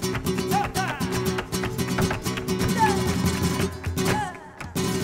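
Flamenco music: two acoustic flamenco guitars strumming with sharp hand claps (palmas) keeping the rhythm. The music breaks off briefly a little after four seconds in, then comes back in with a sharp accent.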